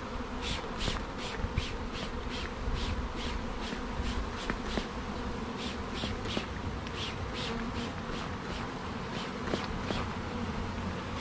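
A swarm of honey bees buzzing in the air around the microphone: a steady droning hum, with a quick regular pulsing in the higher pitches about three times a second.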